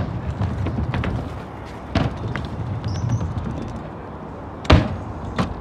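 Small hard wheels rumbling over the concrete of a skatepark, with a sharp clack about two seconds in and a louder one near the end, typical of a rider landing a trick.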